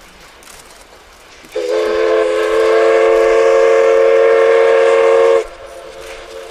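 Steam locomotive whistle from a double-headed steam train: one long blast of about four seconds, starting about a second and a half in and cutting off sharply. It is followed by the quieter running of the passing train.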